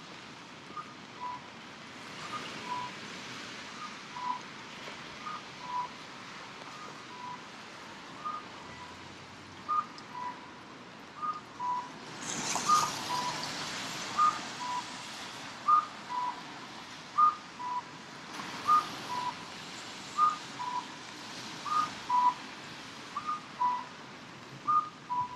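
Electronic two-note chime, a higher note then a lower one, repeating about every second and a half: the kind of accessibility guide signal that sounds at Japanese stations and crossings. Beneath it is a hiss of rain and wet-road traffic, which swells twice.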